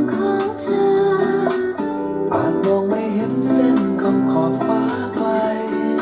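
Recorded music in an instrumental passage with no singing: guitar picking out a melody of changing notes over a fuller accompaniment, at a steady level.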